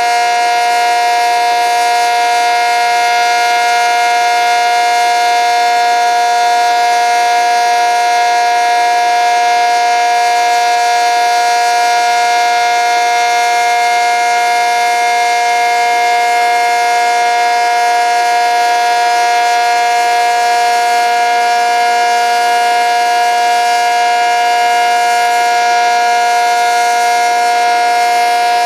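ACA Cyclone 125 omnidirectional outdoor warning siren sounding its steady alert: a loud chord of several fixed pitches, held without rising, falling or wavering.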